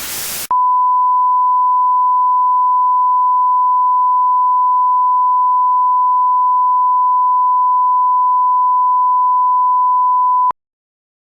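A long, steady, single-pitched electronic beep, held unchanged for about ten seconds. It starts about half a second in and cuts off suddenly with a click.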